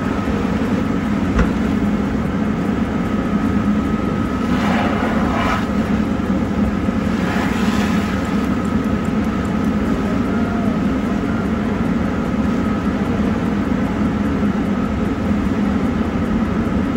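Steady low mechanical rumble like a running vehicle engine, with a faint steady whine above it and two brief hissing bursts about five and eight seconds in.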